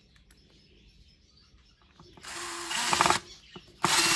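Cordless drill/driver driving screws into the wooden front panel of a speaker box. After about two quiet seconds there is a run of about a second, a short pause, then a second, louder run near the end.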